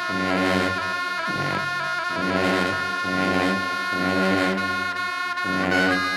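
Tibetan gyaling shawms playing a loud melody of held, reedy high notes that step from pitch to pitch, with lower tones sounding beneath them.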